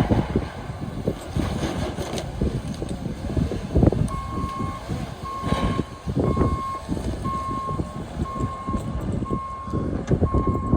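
Backup alarm of a heavy snow-clearing machine starting about four seconds in, a steady repeated beep roughly every 0.7 seconds, over the low rumble of the machine working.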